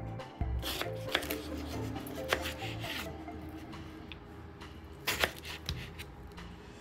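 A knife slicing through kiwi fruit on a wooden cutting board, with irregular knocks of the blade against the board, the loudest about five seconds in. Background music plays underneath.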